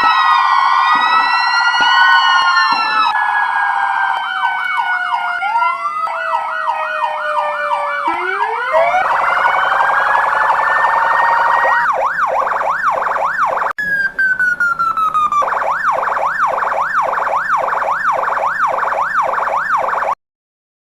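Electronic fire-truck sirens sounding loud and unbroken, overlapping slow rising-and-falling wails with fast repeated yelps and switching pattern abruptly several times. They cut off suddenly near the end.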